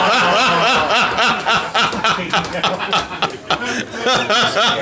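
Audience laughing at a joke: several people chuckling and laughing together in quick, pulsing ha-ha bursts.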